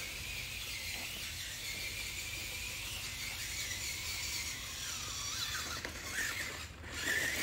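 Small electric drive motors of a Grave Digger Freestyle Force RC monster truck whining as the toy drives and spins, a high whine that wavers in pitch and grows busier near the end.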